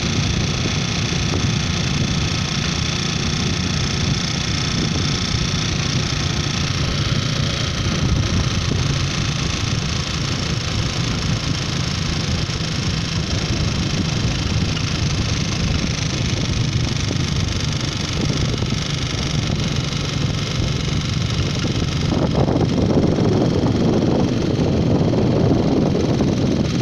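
A vehicle driving along a paved road: a steady engine drone with tyre and road rush. About 22 seconds in, a louder, rougher rush of wind or air comes in.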